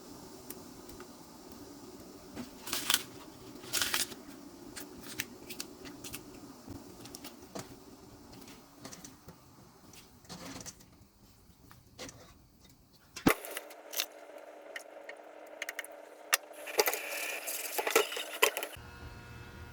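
Scattered light clicks and knocks of objects being handled, over a low steady hum. The background changes abruptly about 13 seconds in.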